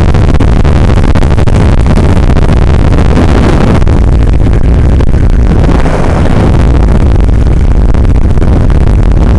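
Loud, steady rushing noise with a heavy low rumble and no clear motor tone; it eases slightly about six seconds in.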